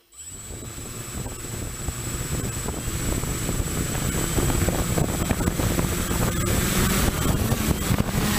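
FPV multicopter's motors and propellers spinning up on the ground, getting steadily louder, with propeller wash buffeting the onboard camera's microphone and a thin steady high whine. Near the end a lower motor tone rises as the craft begins to lift off.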